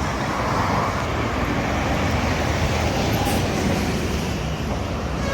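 Toll-road traffic passing, a steady even rushing noise of vehicles with no horn sounding.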